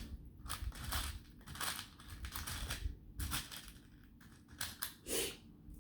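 Small beads clicking and rattling as they are sifted and picked through by hand: an irregular run of light clicks with a few louder clusters.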